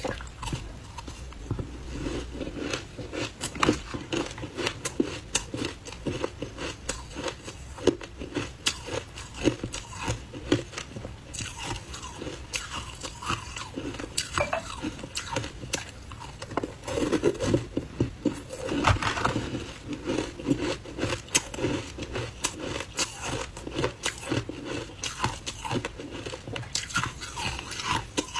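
Ice balls dusted with matcha powder being bitten and chewed: a dense, continuous run of sharp crunches and cracks of breaking ice.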